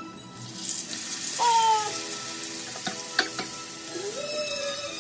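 Fish shallow-frying in hot oil on a flat tawa, a steady hissing sizzle that grows stronger about half a second in.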